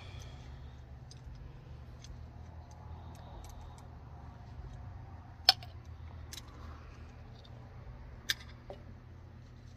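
Small clicks and taps of PVC pipe, fittings and primer cans being handled while a joint is primed, with two sharp clicks about five and a half and eight seconds in. A steady low hum runs underneath.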